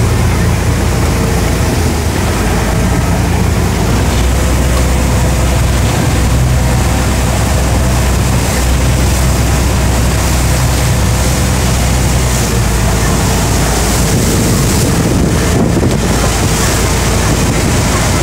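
Cross-river ferry's engine running steadily under way, a low hum, with water rushing past the hull and wind buffeting the microphone.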